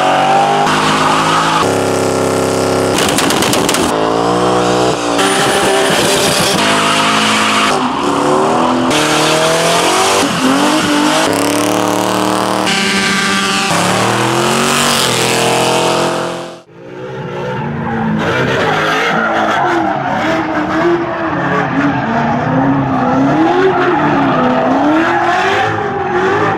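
American V8 muscle cars revving hard during burnouts, with tyre squeal, cut together as a run of short clips that change abruptly every second or two. Past the middle the sound drops away for a moment, then a vehicle sound returns with a tone that swings up and down in pitch.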